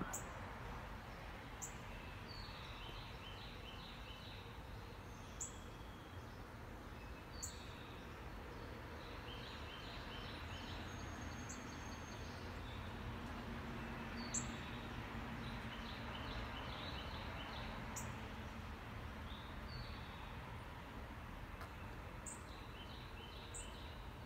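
Outdoor background noise, a steady low hum, with birds singing over it. One bird repeats a short run of quick notes every few seconds, and sharp single high chirps come now and then.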